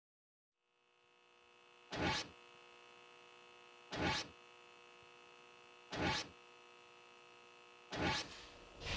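Edited surveillance sound effects: a faint steady electronic hum with four short swishes, one every two seconds, each marking a CCTV camera feed popping up on screen.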